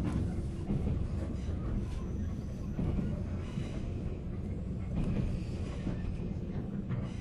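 Running noise inside a JR 485 series limited-express motor car: a steady low rumble of wheels on rail and the car body, with scattered faint clicks from the track.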